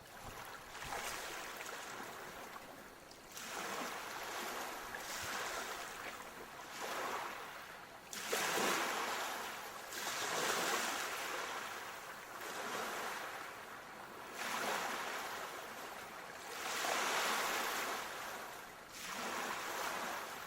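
Sea waves washing ashore, swelling and fading every two to three seconds, with a stronger surge about eight seconds in.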